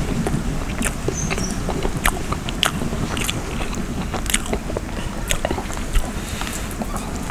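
Close-miked eating of chicken curry: irregular chewing, biting and wet smacking clicks, with no rhythm.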